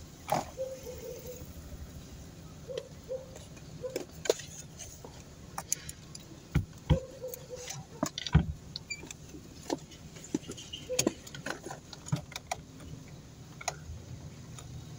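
Car engine idling, heard inside the cabin, with a scattered run of sharp clicks, knocks and light rattles from small things being handled in the car. The loudest knocks come in the middle.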